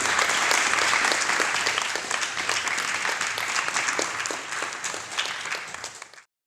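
Audience applauding, with many individual claps. The applause slowly dies down and then cuts off suddenly near the end.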